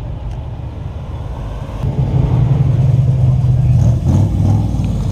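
A car engine's low exhaust rumble close by. It grows louder about two seconds in and holds a steady low note that drops slightly near the end.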